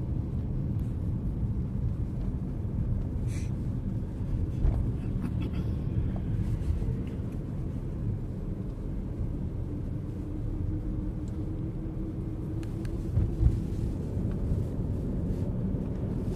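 A car on the move, heard from inside the cabin: steady low engine and road rumble. A faint hum comes in for a few seconds past the middle, and there is a light knock near the end.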